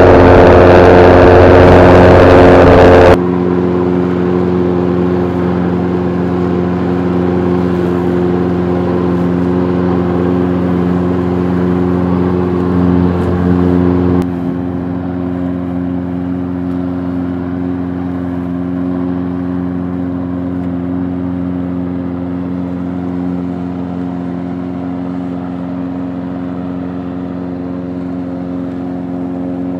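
Makita PLM5600N lawnmower's 190cc four-stroke engine running steadily while mowing grass. It is very loud and close for the first three seconds, then abruptly quieter, and quieter again about fourteen seconds in.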